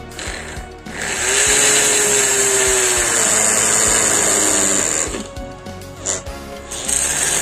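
Hand-held DC motor drill with a step drill bit boring out the centre hole of a PVC-sheet siren rotor: loud grinding with a high whine. It runs from about a second in to about five seconds, eases off briefly, and starts again near the end.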